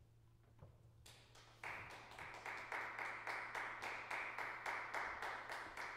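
Hand clapping that starts faintly about a second in and then settles into steady, evenly spaced claps, about four a second, in a reverberant recital hall. The even rhythm suggests one or a few listeners rather than a full audience, applauding the end of a percussion performance.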